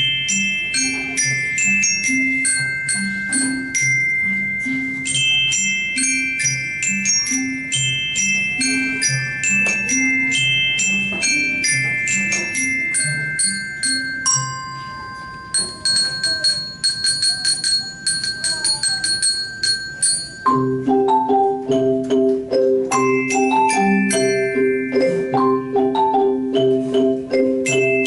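An ensemble of xylophones and other mallet instruments playing a piece together: a repeating bass line under quick struck high patterns. About halfway through the texture thins to a few ringing held notes, then about two-thirds in the full ensemble returns louder, with deeper sustained bass notes.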